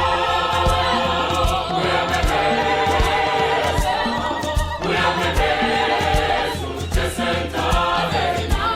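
Background music: a song with held, harmonised sung vocals over a steady low beat.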